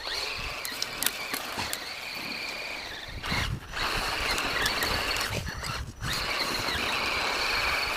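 Axial SCX10 Deadbolt RC crawler's electric motor and geartrain whining as it drives through snow. The whine cuts out twice, briefly about three seconds in and again about six seconds in, as the throttle is let off, with a few sharp clicks.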